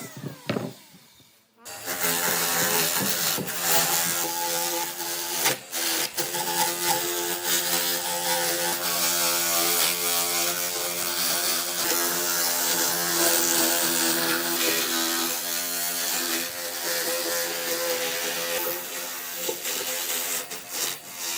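Power tool motor running steadily on wood, starting after a short quiet pause and briefly dipping near the middle.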